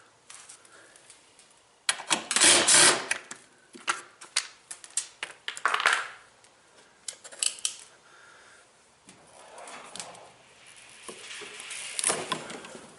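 Clicks, knocks and rattles of hand tools and metal parts being handled while a washing machine's underside is taken apart, with a loud scraping rattle lasting about a second, two seconds in.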